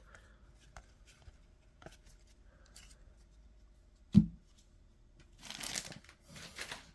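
Paper trading cards being handled and sorted: faint scattered clicks, a single sharp knock about four seconds in, then about a second of rustling and a shorter rustle near the end.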